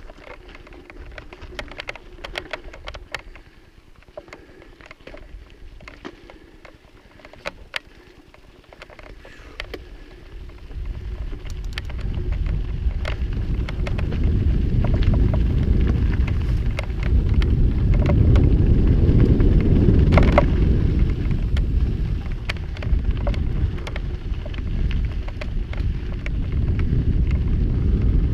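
A mountain bike riding over a dusty dirt trail. It starts with scattered clicks and rattles. From about ten seconds in, a loud low rumble of wind buffeting the microphone comes in and stays as the pace picks up.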